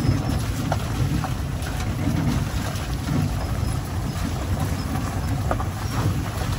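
Wheels of a summer dog cart rolling over a wet gravel trail behind a running sled-dog team: a steady low rumble with scattered crunches and pops from the gravel.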